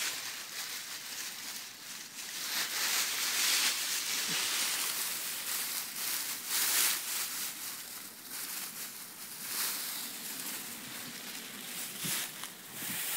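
Dry fallen leaves rustling and crackling as a golden retriever digs and roots through a deep pile of them with its head, with irregular louder crunches as it shoves through.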